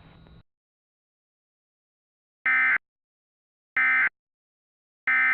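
Emergency Alert System end-of-message code: three short, identical bursts of SAME digital data tone, about 1.3 seconds apart, signalling the end of the alert. A faint hiss cuts off about half a second in, before the bursts.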